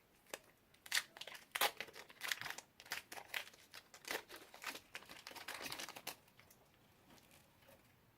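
Slime being squeezed and stretched by hand, giving a dense run of crackling, popping squelches for about six seconds before it goes quiet.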